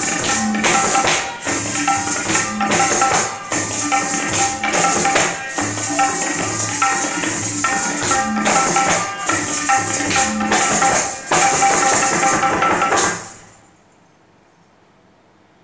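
Kathak dance music with tabla strokes and the steady jingle of ankle bells (ghungroo), sharp stamps of footwork marking the rhythm. It stops suddenly about 13 seconds in as the piece ends, leaving faint room hiss.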